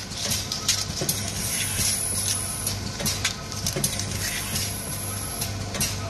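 Printed plastic seed sachets crinkling and rustling as a hand handles them, a quick stream of sharp crackles over a steady low hum.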